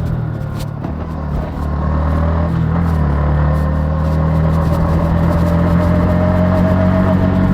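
Yamaha MT-15's single-cylinder engine running under way through its stock exhaust, its pitch climbing slowly over the last few seconds as the bike pulls.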